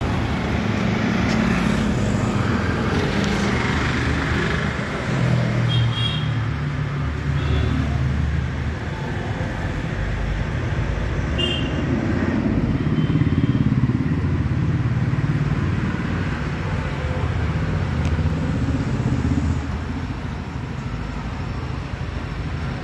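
Motor vehicle engine noise, swelling and easing slowly, with a couple of short high squeaks about six and eleven seconds in.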